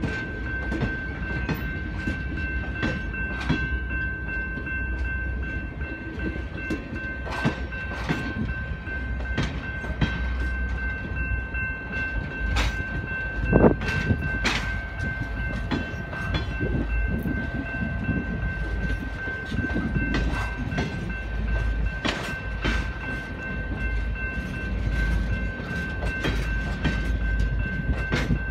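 Grand Canyon Railway stainless-steel passenger cars rolling slowly through a grade crossing as the train pulls into the station: a low rumble with irregular wheel clicks and knocks, and one sharp clank about halfway through, over a steady high-pitched tone.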